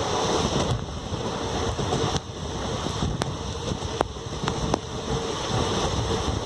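Wind rushing over the microphone from the open door of a moving passenger train, mixed with the train's running noise. Several sharp clicks come in the middle of it.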